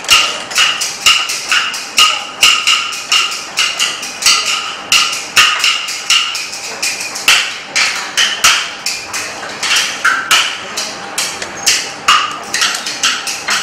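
Chinese kuaiban bamboo clappers played in a fast, steady rhythm: sharp wooden clacks with louder accented strikes about twice a second and lighter clicks in between.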